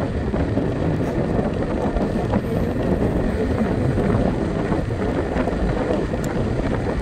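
Wind buffeting the microphone over the steady road noise of a scooter riding along a paved street.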